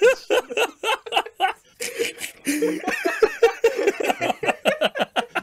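Men laughing hard after a joke's punchline, in a rapid run of short ha-ha bursts that grows thicker about halfway through.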